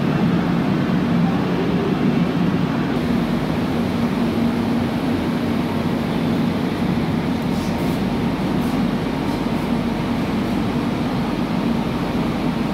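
Steady hum and rumble inside the coach of a Mumbai suburban electric local train (EMU), with a strong low hum and no pauses.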